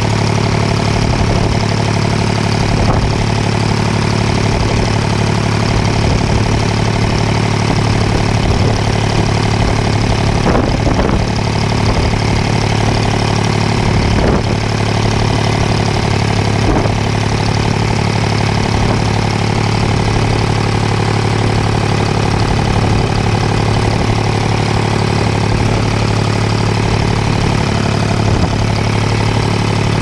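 A fishing boat's engine running steadily at an even speed, a constant deep hum with a mechanical drone over it, and a few faint knocks.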